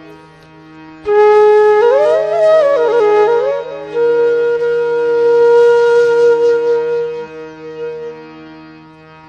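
Background music: a wind instrument plays a slow melody of held, bending notes over a steady drone, entering about a second in.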